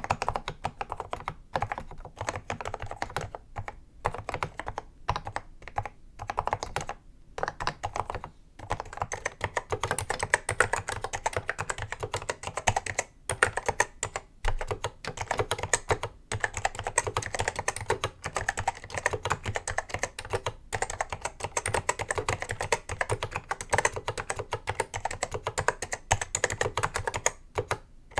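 Typing on a vintage Apple M0110A keyboard with Mitsumi Standard Mechanical linear switches: a steady patter of key clicks and bottom-outs, with short pauses in the first third and then fast, almost unbroken typing.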